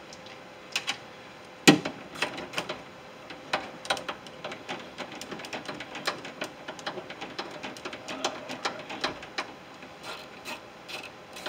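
Irregular clicks and metal knocks from hand work inside a Ford F150 door shell on the window regulator, with one sharper knock just under two seconds in.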